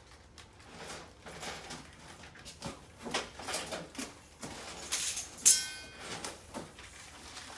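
Irregular knocks, clicks and scrapes of wall-system frame parts and hex head screws being handled and fitted, with one sharp clink about five and a half seconds in that rings briefly.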